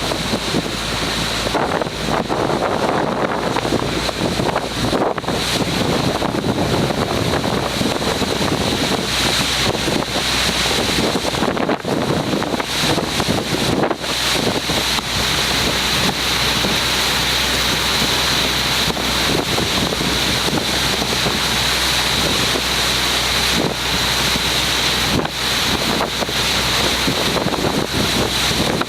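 Boat under way leaving harbour: a steady low engine hum with water rushing past the hull and wind buffeting the microphone, plus a steady high whine throughout.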